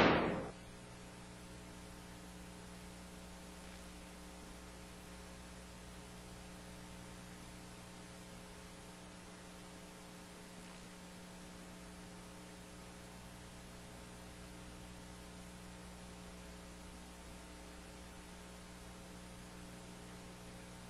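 Steady electrical mains hum with several fixed tones over faint hiss on a broadcast audio feed with no programme sound. The tail of a loud transition whoosh dies away at the very start.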